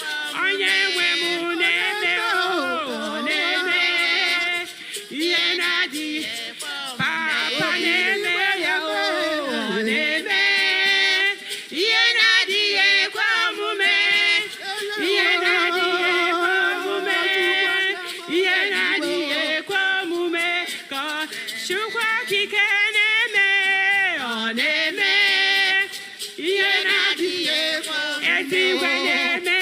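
Voices singing a song, with held notes that waver in pitch.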